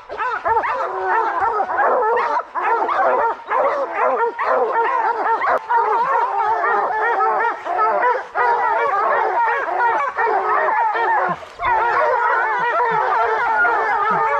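Pack of bear hounds barking treed at a bear up a tree, many dogs' voices overlapping almost without pause. The continuous baying at the trunk is the sign that the bear is treed and the dogs are holding it.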